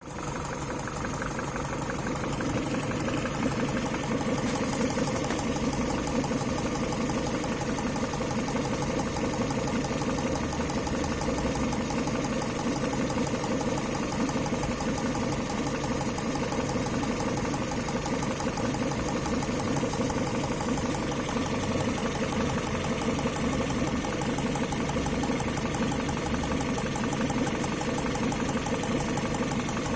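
Engine idling steadily with a fast, regular knock whose cause the owner cannot identify.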